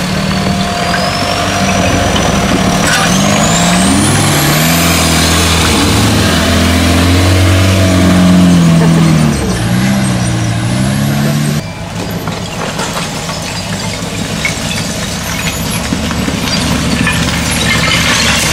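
Off-road 4x4's engine revving under load as it climbs a steep rocky trail, its pitch rising and falling again and again. About twelve seconds in, the sound drops abruptly to a quieter, rougher engine noise.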